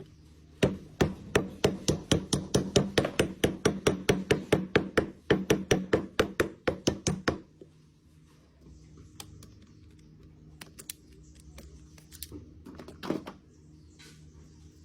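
A fast, even series of knocks, like hammer blows, about four a second, stopping about seven and a half seconds in. Faint scattered taps and clicks follow, with a short louder patch near the end.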